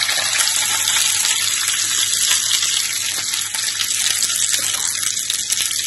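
Hot oil sizzling in a nonstick pan as pieces of steamed dal dhokla shallow-fry with mustard seeds, green chillies and curry leaves: a steady hiss flecked with fine crackles.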